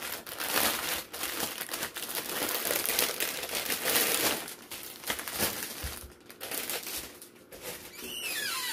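Clear plastic bag crinkling and rustling as it is handled around a bundle of diamond-painting drill packets, louder in the first half and patchier near the end.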